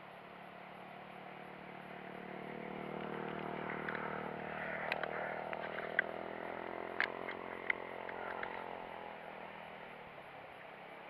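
A motor vehicle's engine passing by, growing louder over a few seconds and then fading away. A few sharp clicks and ticks come in the middle.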